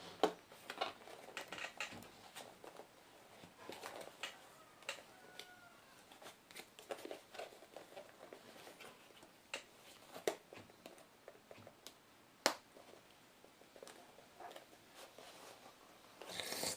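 Faint handling of a smartphone's retail box and packaging: scattered light clicks, taps and rustles as the phone is eased out of the box.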